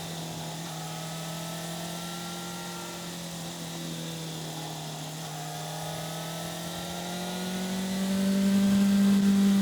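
Yamaha FZ6's 600 cc inline-four engine under way at a steady, moderate throttle, heard on the moving bike. From about seven seconds in, the throttle opens: the engine note rises in pitch and grows louder, then eases off at the very end.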